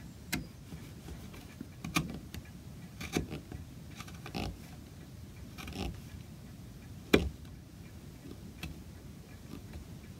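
Carving chisel pushed by hand, paring the sawn edges of an oak fret: a series of short, irregular scraping cuts and snicks, with one sharper click a little after halfway.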